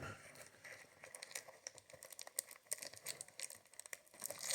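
Faint crinkling and quick small clicks of a Yu-Gi-Oh booster pack's foil wrapper and cards being handled.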